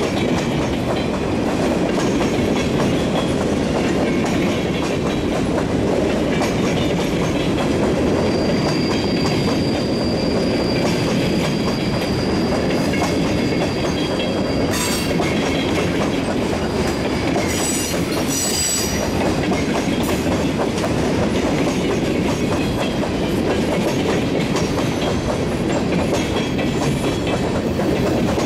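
Freight cars rolling past with a steady clatter of wheels over the rail joints. A thin high wheel squeal comes in about a third of the way through and ends in a sharp click about halfway, followed by a few brief high squeals a little later.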